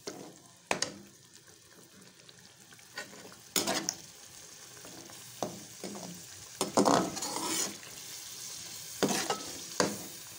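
Chicken karahi sizzling in a pot as its yogurt masala cooks down, with a metal spoon stirring and now and then knocking and scraping against the pot. The sizzle grows louder after a few seconds.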